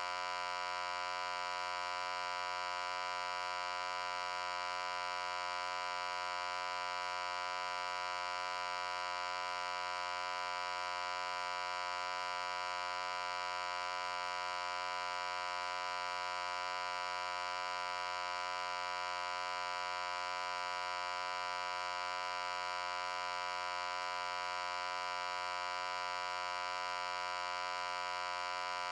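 A loud, steady hum that does not change at all, buzzy and rich in overtones, brightest in its upper-middle pitches.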